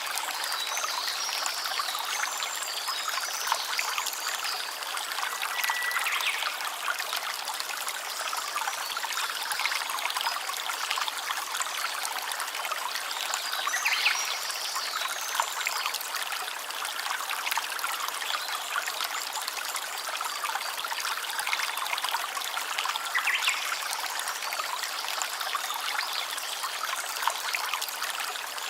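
A stream trickling steadily, with a few brief high-pitched sounds now and then.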